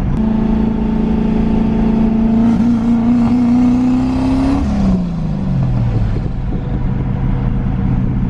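Turbocharged Crown Victoria's 4.6-litre V8 pulling under light throttle, its note climbing slowly for about four seconds, then the revs drop away and settle at a lower steady pitch. The engine is running rich while its fuel system is still changing over to E85.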